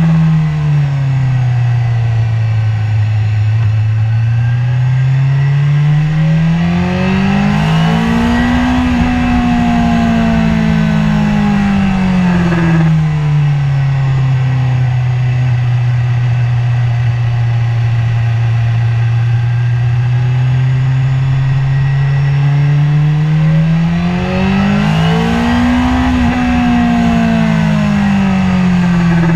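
BMW S1000RR inline-four engine heard from on board, held in second gear: the engine note rises smoothly under acceleration about a quarter of the way in and again near the end, then falls away as the throttle comes off. Between the two rises it runs at a steady lower pitch.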